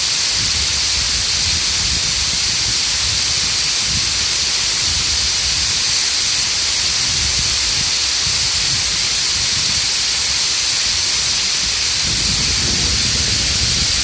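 Waterfall: a loud, steady rush of falling water, with an uneven low rumble underneath.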